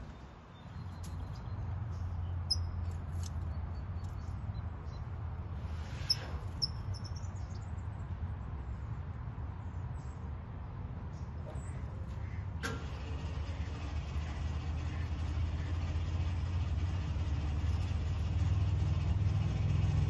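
Low, steady rumble of a motor vehicle's engine, growing louder toward the end. A few faint high chirps come in the first half.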